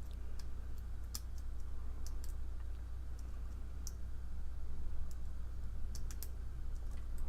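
Lock pick and tension wrench working the pins of a challenge padlock: small irregular metallic clicks as the pins are probed and set one by one, over a steady low hum.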